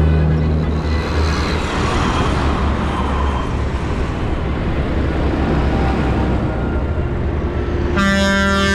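Farm tractors driving past on a road: a steady, loud diesel engine drone with tyre and road noise. Near the end a vehicle horn starts and holds one steady note.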